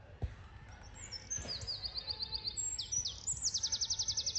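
A songbird singing: a run of quick, high, downward-sliding notes that speeds up about three seconds in into a fast, loud trill. A single low knock sounds just at the start.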